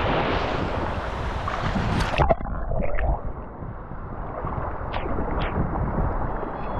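Wind buffeting an action camera's microphone over the wash of surf, a steady rumbling noise, with a sharp knock about two seconds in and a few short higher-pitched sounds later.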